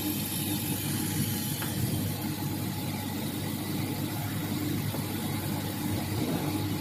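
80 W CO2 laser cutting and engraving machine running: a steady mechanical hum with an even hiss of air.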